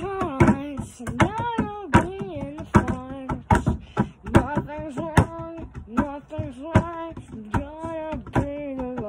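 Song: a lead voice singing held, bending notes over frequent sharp percussive hits.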